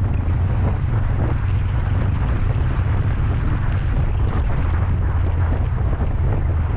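Wind buffeting a motorcycle-mounted camera's microphone while riding, a steady low rumble with rushing noise over it.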